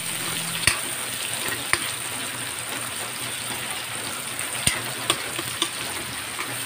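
Onion, garlic and tomato sizzling in hot oil in a metal wok while a spatula stirs them, with a few sharp clicks of the spatula against the pan.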